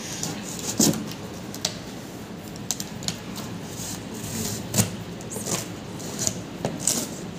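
A kitchen knife slitting the packing tape along a cardboard box seam: irregular scratchy cuts and sharp clicks, the loudest about a second in and again near five seconds, with cardboard rustling as the flap is pulled up.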